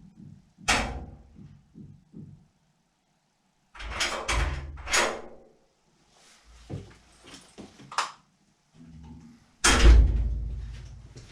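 A series of separate knocks and thumps, with a cluster in the middle. The loudest comes near the end and dies away over about a second.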